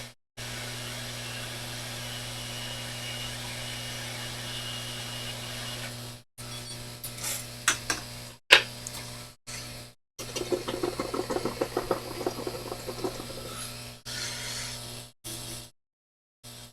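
Hot air rework station blowing steadily over a circuit board, a rushing hiss over a low hum, with a few sharp clicks and a run of rapid ticks partway through. The sound cuts out abruptly several times.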